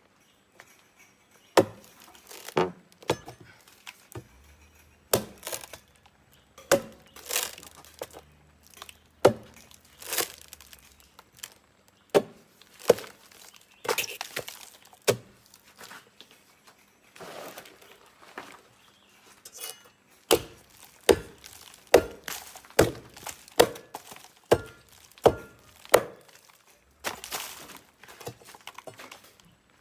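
A long, irregular run of sharp chopping or knocking strikes, about one or two a second, some louder than others and some in quick pairs.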